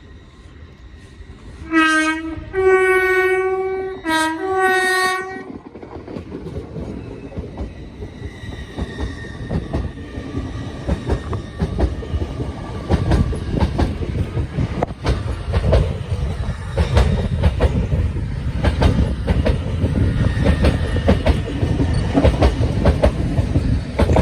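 Train horn sounding three blasts, a short one and then two longer ones. The train then passes with a steady rumble and rail-joint clickety-clack that grows louder.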